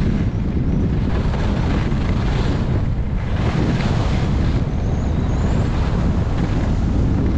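Wind buffeting a GoPro Hero 8 Black's microphone during a downhill ski run, a steady rumble, with the hiss of skis sliding and carving on groomed snow swelling every second or two.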